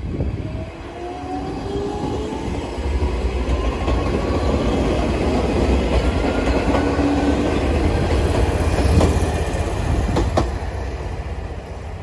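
Chichibu Railway electric train passing close by: a heavy running rumble with a whine that rises steadily in pitch as the train gathers speed, and a few sharp wheel clicks over rail joints near the end before it fades away.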